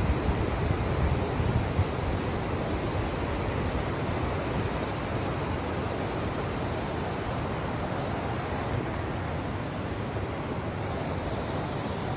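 Wind buffeting the microphone, a steady rushing noise with heavy low rumble.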